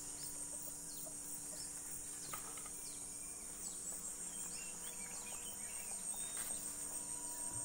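Steady high-pitched insect chorus, with a few faint short chirping calls near the middle.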